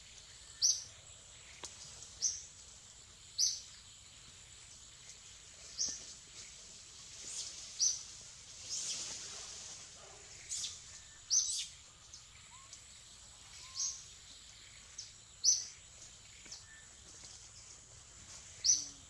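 A bird chirping repeatedly: about ten short, sharp, high chirps spaced one to three seconds apart, over a steady high-pitched whine.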